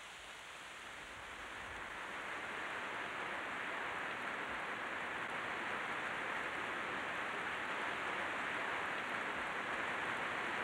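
Heavy rain falling steadily, an even hiss that grows louder over the first few seconds and then holds.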